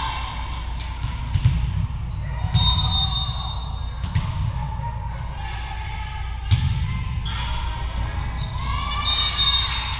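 Volleyball thumping on a hardwood gym floor and struck by hand: a few sharp thumps a second or more apart, the loudest about six and a half seconds in, echoing in a large hall. Girls' voices call and shout throughout, rising near the end.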